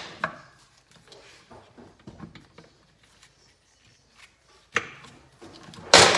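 Metal clinks and clunks as a Kawasaki KZ400 clutch basket and clutch pack, with the chain around them, are worked loose and pulled off the shaft. There are a few light taps, a sharp knock about five seconds in and a louder clunk near the end.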